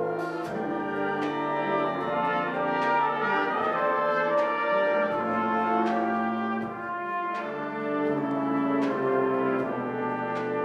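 Live school ensemble music led by brass (trumpets, trombones and horns) playing sustained chords and melody, with a percussion hit about every second or so.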